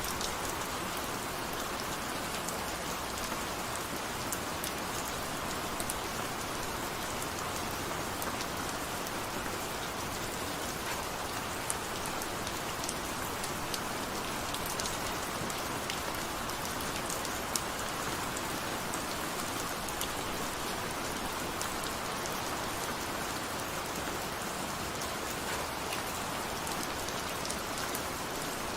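Steady rain falling and pattering on a surface, with scattered individual drop ticks.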